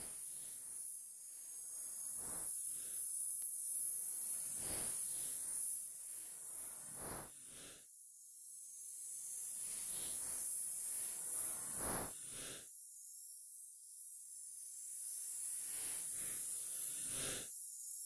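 Designed alien-swamp ambience sound effect: a steady high hiss with irregular, short noisy swells every second or so, some reaching deep down. The swells thin out into a quieter lull a little past the middle before building again.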